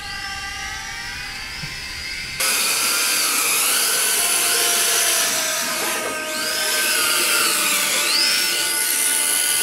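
Steady held tones for the first two seconds or so, then a sudden cut to radio-controlled drift cars: their small electric motors whine, rising and falling in pitch as they rev, over a loud steady hiss.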